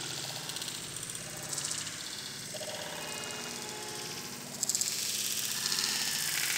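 Sandalled footsteps splashing through shallow rainwater on pavement, with an engine running in the background. The splashing hiss surges about a second and a half in and again from around two-thirds of the way through.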